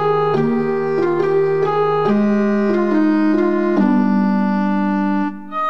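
Background music: held keyboard chords that change every second or so, breaking off shortly before the end.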